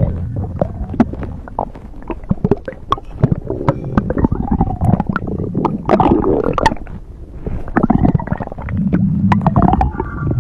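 Stomach growling and gurgling: a steady run of wet pops and squelches over a low rumble. There is a louder swell about six seconds in and a deeper, drawn-out groan near the end.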